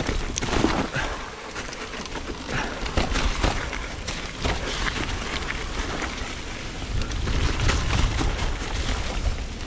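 Mountain bike descending a loose dirt trail covered in fallen leaves: tyres rolling and crunching over the dirt, with frequent short rattles and knocks from the bike over bumps. A low wind rumble on the camera microphone runs under it, heavier near the end.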